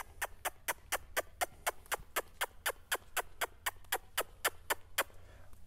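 A riding crop tapping a horse's hip in a quick, even rhythm, about four to five light taps a second, stopping shortly before the end. This is the pressure cue asking the horse to bring its hindquarters around toward the handler.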